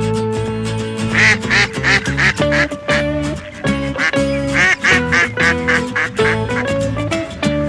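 Background music with a steady bass line. Repeated short quacking calls come in clusters over it from about a second in.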